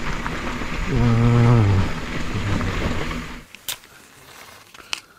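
Bicycle jolting over a washboard dirt road, with a steady rush of noise and a rider's held vocal "aaah" about a second in. About three and a half seconds in it cuts to a quiet scene with two sharp strikes of a match.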